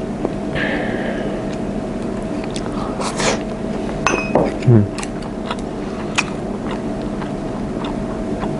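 Light clicks of chopsticks against ceramic bowls as food is picked up, over a steady machine hum in the room. A short, falling hummed "mm" from the eater about halfway through.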